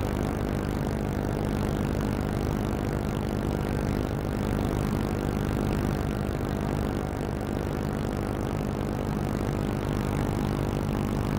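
Tugboat's diesel engine running steadily, a constant low drone heard from on board, with the wash rushing along the hull.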